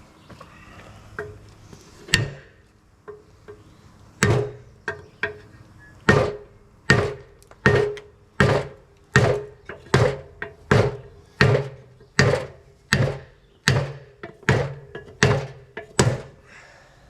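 Hammer blows on a steel Ford 9-inch rear axle housing to knock out a dent: two separate strikes, then a steady run of blows about one every three-quarters of a second from about six seconds in, each with a short metallic ring.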